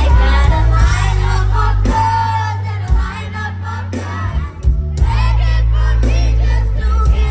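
Loud amplified pop music with a singer's voice over heavy, booming bass; the bass drops out briefly around the middle.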